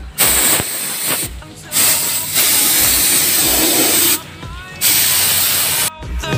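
Compressed-air spray gun hissing in four bursts, the longest about two and a half seconds, as it sprays matte black paint.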